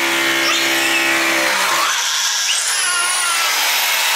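Corded electric drill running continuously while drilling a hole into the wall, with a toddler crying and wailing over the noise.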